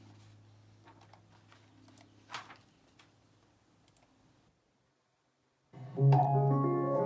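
A faint low hum and a few scattered clicks, then a short gap of dead silence. About six seconds in, a recording of piano music starts loudly.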